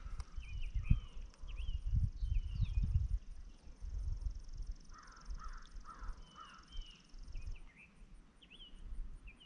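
Outdoor wildlife sound at a farm pond: small birds chirp repeatedly, and a run of four louder calls sounds about halfway through. Under them runs a steady high insect buzz that stops about three-quarters of the way in. A low rumble, loudest in the first three seconds, carries the most energy.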